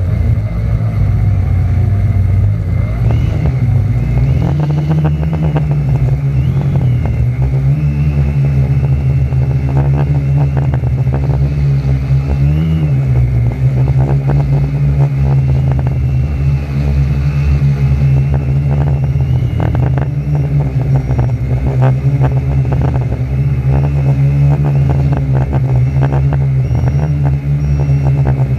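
Motors and propellers of a 450-size quadcopter running close to the camera, a loud steady drone whose pitch wavers up and down as the throttle changes, with one brief swell about twelve seconds in. Gusty wind buffets the microphone in short bursts.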